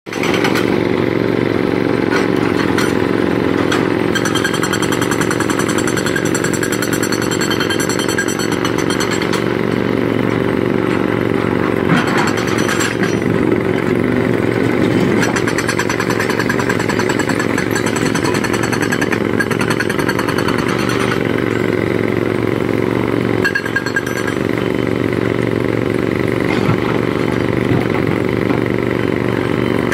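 Excavator's diesel engine running steadily as the machine works, with a high hydraulic-type whine that comes and goes and a sharp clank about twelve seconds in.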